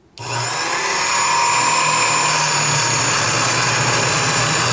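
Small benchtop drill press starting up a moment in and building to a steady whine over about a second, its bit drilling into plywood.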